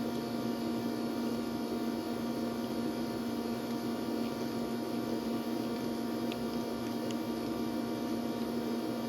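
Steady electrical hum, with a few faint ticks scattered through it.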